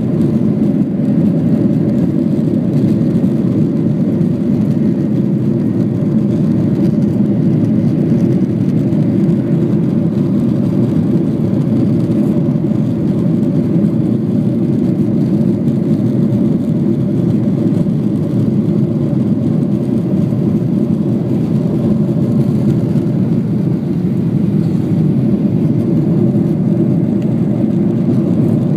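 Jet airliner's engines at takeoff and climb power, heard from inside the cabin: a loud, steady, deep rush with a faint steady hum above it.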